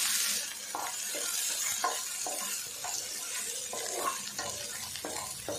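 Garlic cloves and coconut pieces frying lightly in oil in a nonstick pan over low flame, a soft sizzle that eases after the first half second. Over it, a wooden spatula scrapes and taps the pan in short, irregular strokes as the pieces are stirred.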